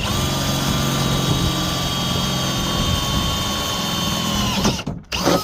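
Power drill with a 1/4-inch bit running steadily at full speed, drilling a hole through a metal MORryde slide-out tray. It is released and spins down near the end, then gets a short burst of the trigger.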